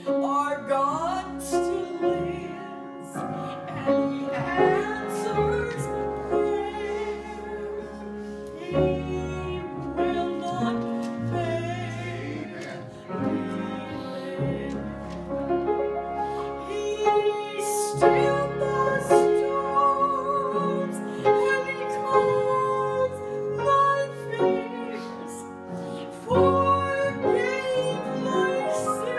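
A woman singing a gospel song solo with a sustained, wavering voice over an instrumental accompaniment.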